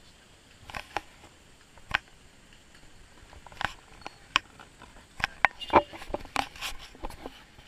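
Horse's hooves clip-clopping on the road as it pulls a calesa (horse-drawn carriage): irregular sharp knocks, sparse at first and coming more often in the second half.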